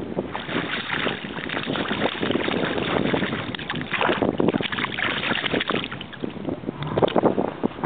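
Irregular splashing of water as a fish thrashes and skitters across the surface.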